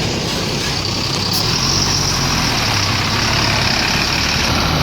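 Diesel engine of a large coach bus running steadily close by, with a loud, even rumble.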